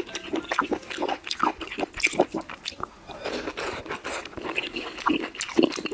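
A person chewing and biting mouthfuls of kung pao chicken with king oyster mushroom close to the microphone: irregular short mouth clicks and smacks.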